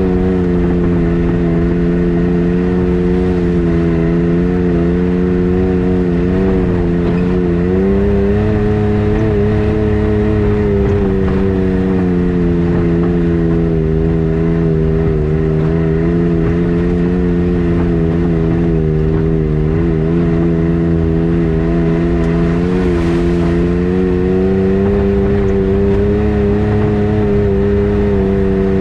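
A vehicle engine running steadily while under way, its pitch rising and falling gently as the speed changes, over a low road-and-wind rumble.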